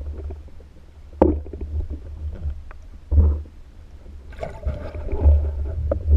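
Muffled underwater sound through a diver's camera: a steady low rumble of water moving past, with dull knocks about a second in and about three seconds in, and more water noise building toward the end.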